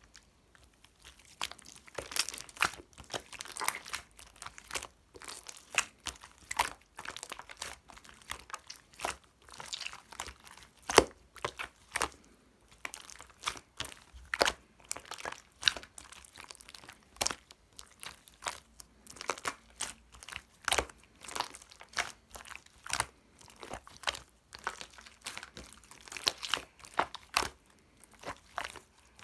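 Slime being squished and pressed by hand, giving a dense run of irregular sharp clicks, pops and crackles, several a second.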